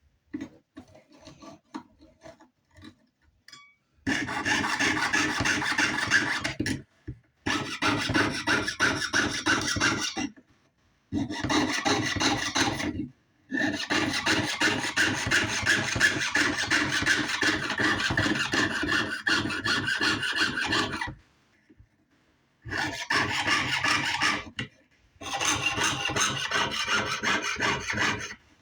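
Jeweler's saw cutting through sheet metal with fast, even back-and-forth strokes. The cutting starts about four seconds in and goes in runs of a few seconds, stopping briefly several times. The blade has been waxed to keep it from dragging.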